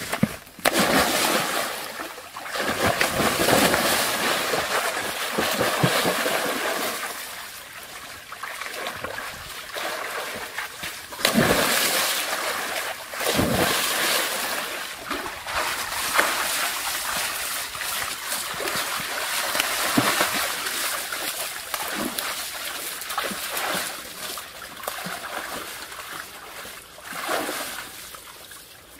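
Water splashing and sloshing in a shallow muddy pool as ducks splash about in it, swelling and fading, with a couple of sharper, louder splashes about halfway through.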